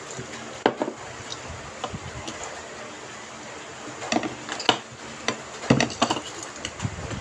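Scattered sharp knocks and clicks of a plastic cup and dishes being handled on a tabletop during a meal, in small clusters near the middle and end.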